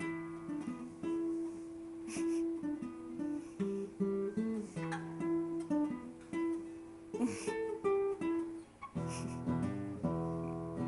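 Guitar being played: a picked single-note melody, changing about nine seconds in to fuller chords.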